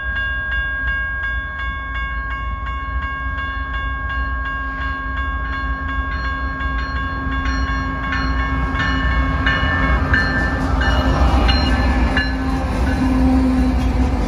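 Railroad grade-crossing bell ringing steadily, about two to three strokes a second, as BNSF diesel freight locomotives approach; the low engine rumble of the locomotives grows louder in the second half as they near the crossing.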